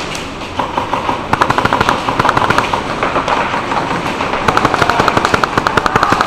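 Airsoft BB guns firing rapid full-auto bursts: a fast, continuous stream of sharp cracks, densest in the second half.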